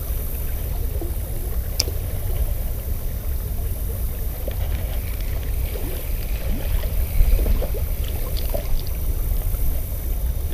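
Steady low rumble of flowing river water and wind on the microphone, with a few faint clicks, one sharper about two seconds in.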